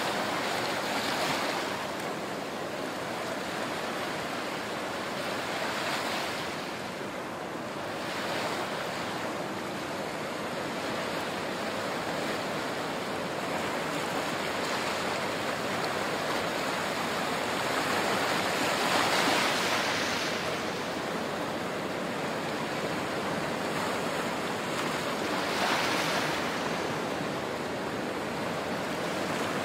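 Small waves washing in and draining back over sand and rocks at the water's edge, a steady wash that swells louder every few seconds, the strongest surge about two-thirds of the way through.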